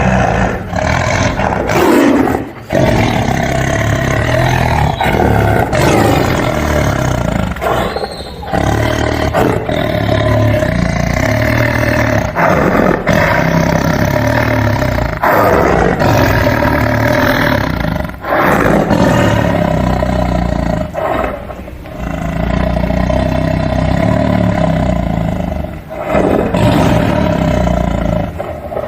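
Tiger roaring and growling over and over, long loud rough roars broken by short pauses every few seconds.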